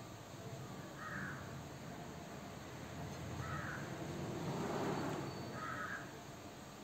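A crow cawing outside, three short calls spaced a little over two seconds apart. A soft rushing noise swells and fades around the middle.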